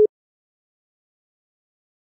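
Silent gap in an Italian ringback tone: a steady single-pitch tone, the end of a one-second burst, cuts off right at the start, then nothing.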